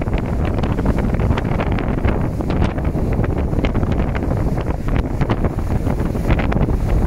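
Strong wind, well over 30 knots, buffeting the microphone: a steady heavy rumble with constant crackling gusts.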